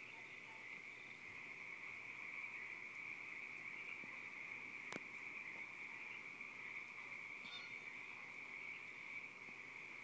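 Faint, steady chorus of crickets, a continuous high-pitched trill. A single sharp click comes about halfway through, and a brief faint chirp a little later.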